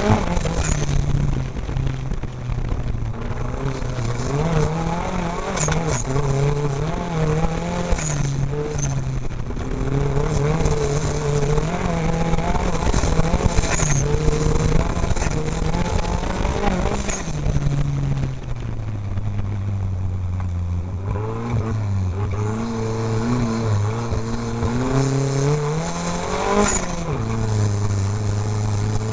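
Off-road race vehicle's engine heard from inside the cab during a race, revving up and falling back again and again as the driver accelerates, shifts and lifts, with a spell of lower steady running in the later part before it climbs again near the end.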